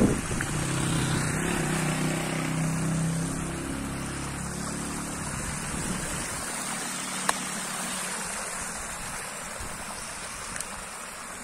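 Shallow winter runoff stream rushing and splashing over stones and down a small spillway step. A steady low engine hum sits under the water for the first five seconds or so, then fades away, and there is a single sharp click a little past halfway.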